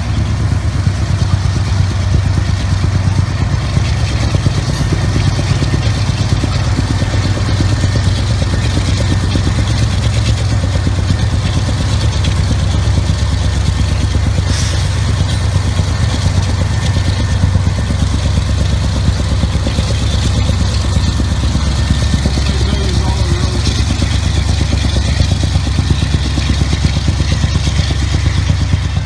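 Canadian Pacific diesel-electric locomotive engine running hard with a steady low rumble as it hauls a freight train, a sign that its turbocharger has blown and is spitting fire and black smoke from the exhaust stack.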